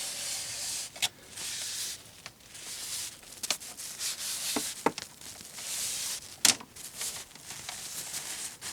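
Cloth wiping and scrubbing hard at stuck-on dirt on a plastic game controller: repeated scratchy rubbing strokes, with a few sharp clicks, the loudest about six and a half seconds in.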